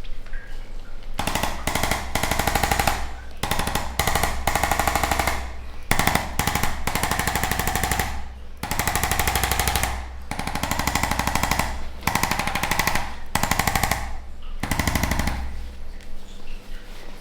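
Electric percussion massager running in repeated bursts of half a second to two seconds with short breaks between them: a very fast, even hammering buzz.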